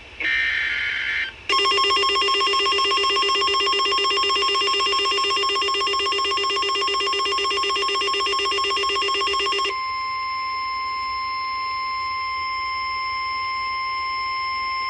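Emergency Alert System tones for a severe thunderstorm warning. A brief burst of buzzy digital header tones comes first, then a loud, rapidly pulsing electronic alert tone for about eight seconds. After that a single steady tone holds on to the end.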